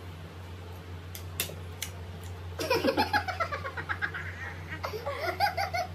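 Two people laughing hard in quick, high-pitched repeated bursts, starting about two and a half seconds in, with a few light clicks before it.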